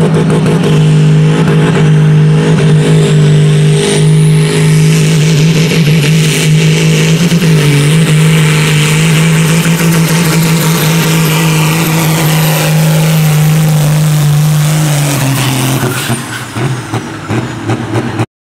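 John Deere 4440's turbocharged six-cylinder diesel running flat out under heavy load while pulling a weight-transfer sled, a steady, loud drone. About fifteen seconds in, the engine note drops and quietens as the pull ends, then the sound cuts off suddenly.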